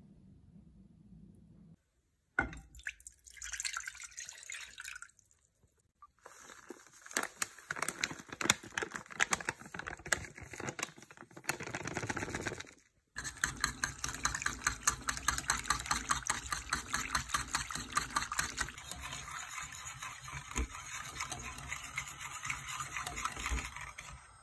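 Wire whisk stirring soup in an aluminium pot: a fast, rhythmic clinking of metal on metal with liquid sloshing, through most of the second half. Before that come shorter stretches of kitchen clatter and liquid sounds, split by brief silences.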